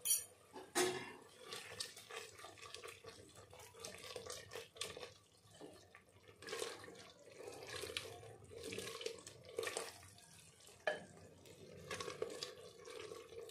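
A spatula stirring thin, watery masala in a pressure cooker: soft, irregular wet slopping and scraping against the pot, with a short knock right at the start.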